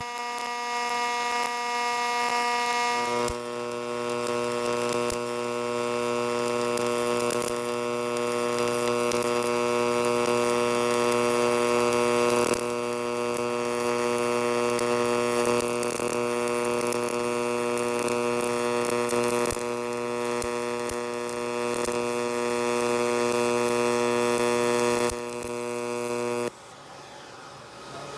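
MIG welding arc from a Millermatic 255 running a stringer bead in 3/8-inch steel with argon/CO2 shielding gas: a steady buzzing hum with light crackle. The pitch shifts about three seconds in, and the arc cuts off a little before the end.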